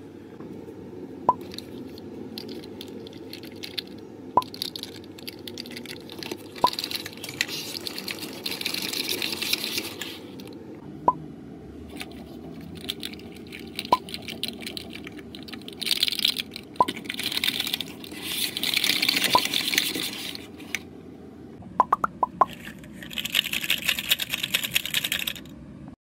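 Segmented plastic fidget toy being flexed, its joints clicking and rattling in bursts of rapid clicks. Every few seconds there is a single sharp plop, about eight in all.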